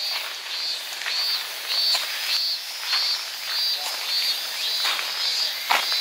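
A high-pitched animal call repeating in identical short chirps about every 0.6 s, over scattered footfalls and crunches on a leaf-covered dirt path, the loudest of them near the end.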